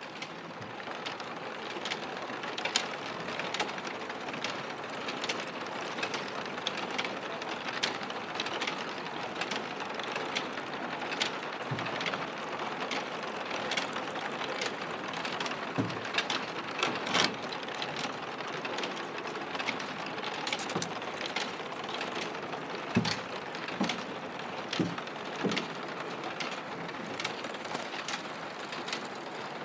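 Overhead chain conveyor in a roof-tile factory running: trolley wheels roll along a curved steel rail with a steady mechanical rattle and irregular clicks and clanks, the loudest clank about 17 seconds in.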